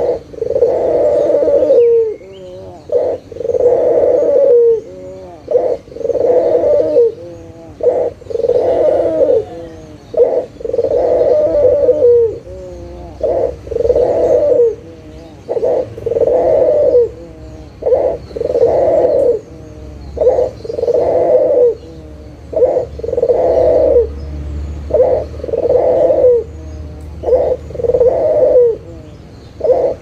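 Barbary dove (puter) cooing over and over, each call a short note followed by a longer rolling coo, repeating about every two and a half seconds.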